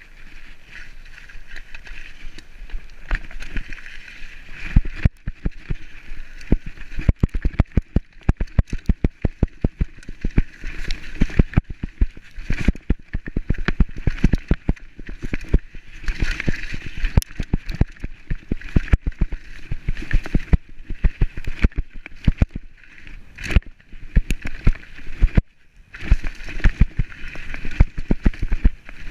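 Mountain bike running fast down a rough trail, rattling and clattering with many sharp knocks from the bumps over a steady rushing noise.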